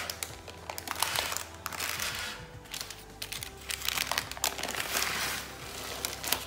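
Parchment baking paper crinkling in several short bursts as it is handled and peeled back from a turned-out sponge cake, over faint background music.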